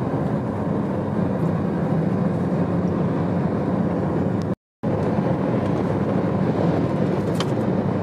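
Steady road noise of a car at motorway speed, heard from inside the cabin, with a very short complete dropout of sound a little past halfway.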